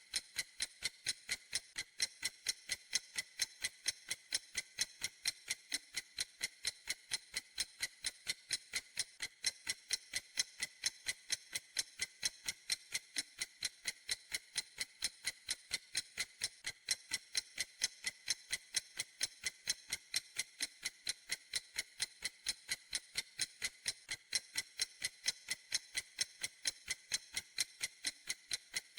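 Clock ticking steadily: an even, unbroken run of sharp, high ticks, about three a second.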